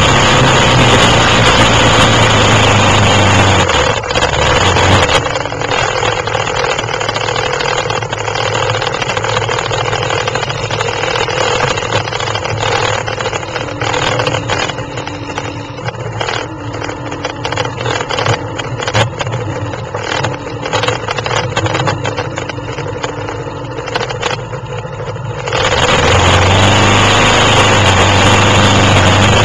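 Quad (ATV) engines running. The sound is loud at first, then from about four seconds in turns quieter and duller, and comes back loud shortly before the end.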